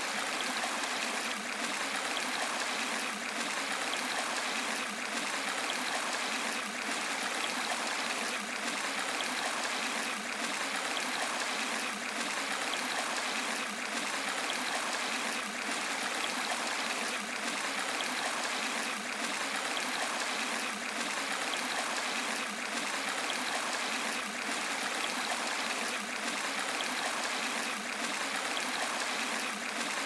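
A small rocky stream running steadily over a little cascade of stones, a continuous even rush of water.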